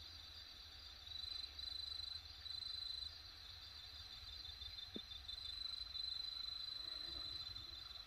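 Night insects trilling steadily at a high pitch; one trill grows louder about a second in, breaking off briefly a few times, then runs unbroken from about five seconds. A single faint click near the middle, over a low hum.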